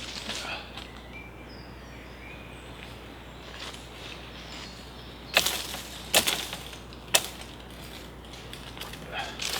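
Three sharp woody cracks about a second apart, a little past the middle, as prickly overhanging branches are broken off to clear headroom.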